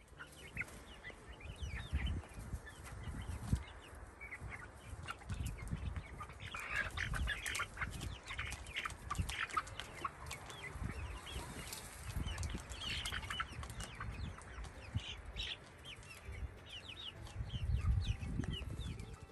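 Domestic hens clucking in many short calls as they feed together, over an irregular low rumble.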